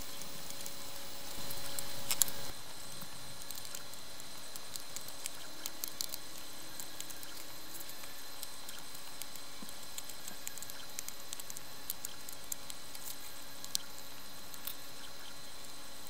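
Small clicks and light scraping of hand tools worked against a 3D-printed plastic fuselage, over a steady hiss, with a louder stretch of about a second near the start.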